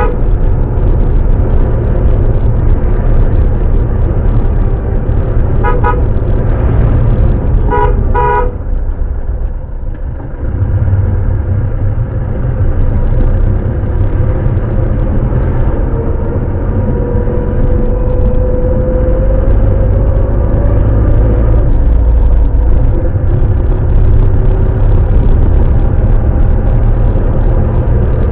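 Vehicle driving along, its engine and road noise a steady low rumble, with short car-horn toots about six seconds in and again, twice in quick succession, about eight seconds in.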